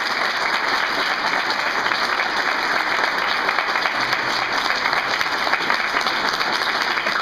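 Audience applauding, a dense steady run of handclaps.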